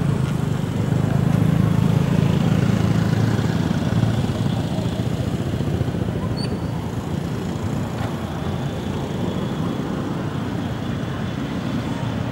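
Steady road traffic noise: a motor vehicle running on the road, loudest in the first few seconds and then easing a little.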